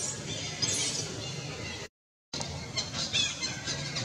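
Baby long-tailed macaque crying in short, high-pitched squeals, a burst near one second in and another cluster about three seconds in. The sound cuts out for a split second about halfway.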